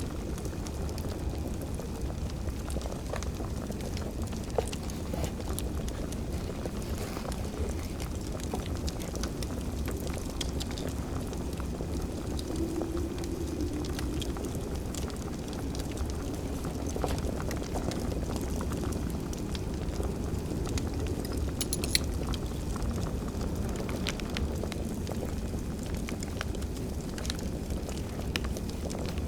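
Wood fire crackling over a steady low rumble, with scattered sharp pops; the loudest pop comes about 22 seconds in.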